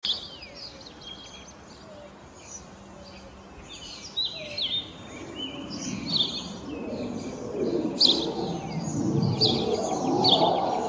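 Birds chirping and whistling throughout, with a low rumble of an approaching low-flying aircraft growing steadily louder from about halfway through.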